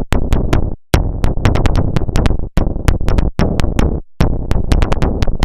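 Electronic synthesizer bass line played over drum-machine beats, a punchy, bass-heavy riff in short phrases with brief gaps between them.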